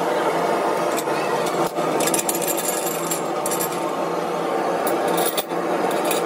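Steady rattling hum of a machine running in the workshop, with a few light metal clicks from the tyre clamp's bolts being handled.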